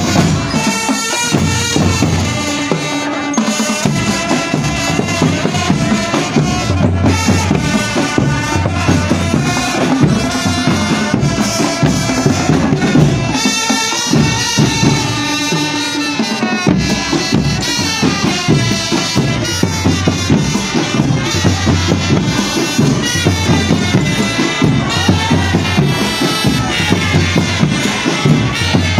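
Marching drum band playing: bass drums and snare drums keep a steady beat under a melody line.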